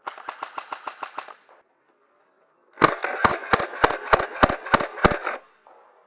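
Airsoft gun firing in two strings of rapid shots: about eight quick cracks in the first second and a half, then after a pause about nine louder, evenly spaced shots at roughly three a second.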